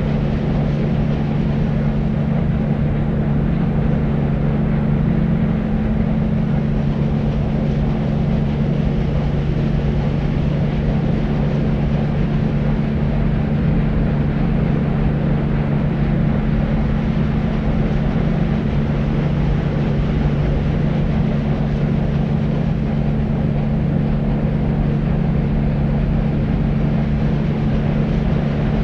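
Steady deep white noise: an even, low rumbling hiss with a constant low hum in it, little treble and no change in level.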